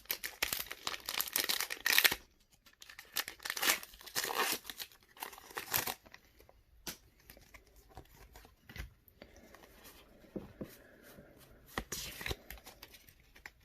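Pokémon TCG booster pack's foil wrapper being torn open and crinkled, with loud rustling spells in the first six seconds and another short one near the end, and quieter clicks and rustles in between.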